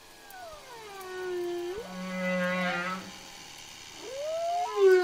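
Whale calls: long pitched tones with many overtones that glide down in pitch and then sweep sharply up. A steadier call over a low hum follows, and a louder rising call begins near the end.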